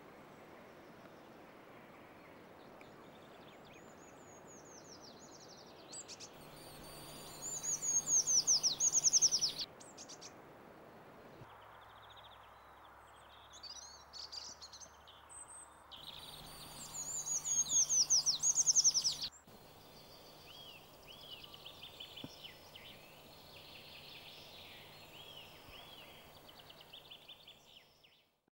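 Eurasian treecreeper singing: two loud songs, each a high, thin run of quick notes falling in pitch over about two seconds, with fainter high bird calls between and after them.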